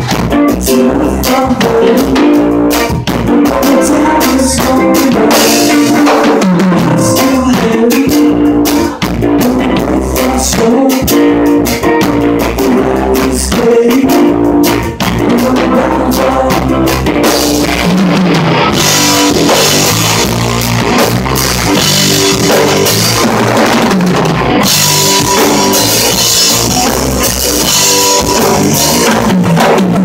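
Live band playing: electric guitar and bass lines over a full drum kit. The cymbals get louder and brighter about two-thirds of the way through.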